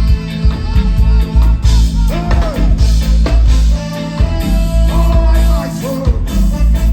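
Live reggae band playing with a heavy bass line, with a sung vocal over it.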